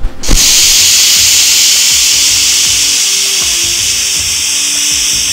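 Loud, steady hissing noise that starts abruptly about a third of a second in, with faint music beneath it.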